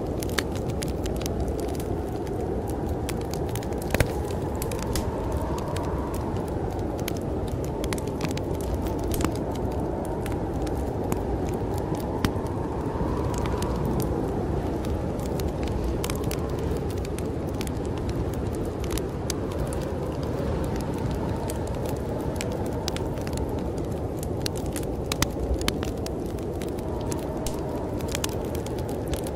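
Wood fire crackling in a fireplace with scattered sharp pops, over a steady low rush of storm wind that swells in gusts a few times.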